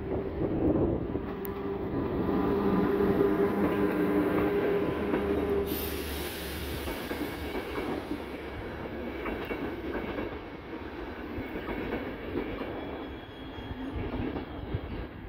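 Electric locomotive passing close with a steady humming drone, then a train of ÖBB passenger coaches rolling by with rumble and wheel clatter over the rail joints. A brief high-pitched wheel squeal cuts in about six seconds in, as the locomotive's hum drops away.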